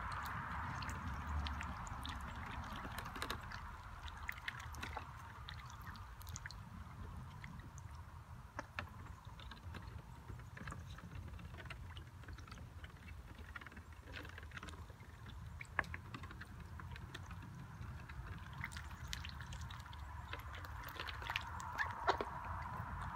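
Domestic ducks dabbling and paddling in a shallow plastic wading pool: small splashes and bill clicks in the water come at irregular moments throughout, over a steady faint background hiss.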